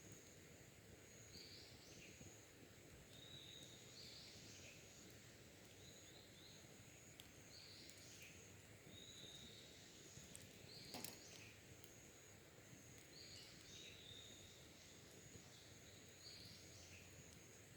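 Faint wild bird song: short high phrases repeating every two to three seconds. One sharp click comes about eleven seconds in.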